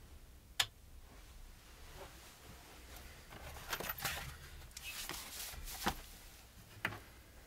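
A sharp click of the amplifier's switch about half a second in, then the rustle and knocks of an electric guitar being picked up and its strap slung over a shoulder, with two short clicks near the end.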